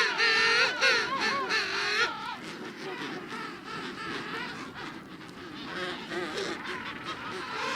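Penguin calling: a loud, wavering, honking call lasting about two seconds, followed by fainter calls over a background hiss.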